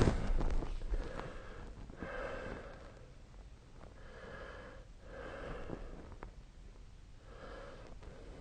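A sleeping person snoring softly: four noisy breaths, each about half a second to a second long and a second or two apart. There is a louder noise in the first second.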